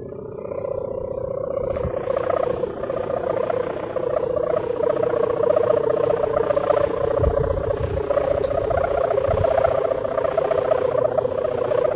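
Kite sendaren (kite hummer) droning steadily in the wind: a buzzy, fast-fluttering hum that rises a little in pitch at first. Its plastic mika membrane is too wide, which gives the rough, diesel-like sound.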